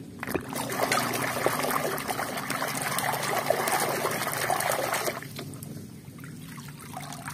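Water sloshing and splashing in a tub as a hand scrubs a mud-caked toy vehicle under the surface, quietening after about five seconds.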